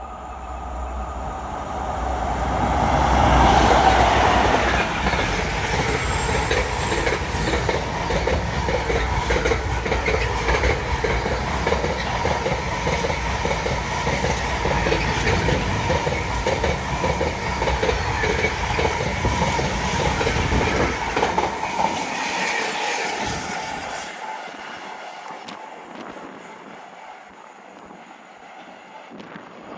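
A train passing on main-line track: it builds quickly in the first few seconds, then a loud rush of wheels on rail with a regular rhythmic clatter runs for about twenty seconds before dying away.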